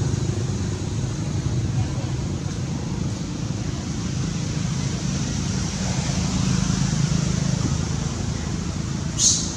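A steady low motor hum, like an engine running nearby, with a steady high hiss above it, and a short sharp high squeak about nine seconds in.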